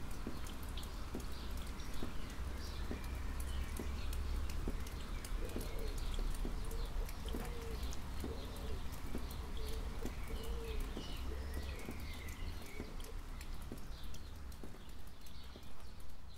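Rain dripping and pattering close by, many small sharp drops, over a steady low rumble. A dove coos over and over from about five seconds in to about twelve, with small birds chirping.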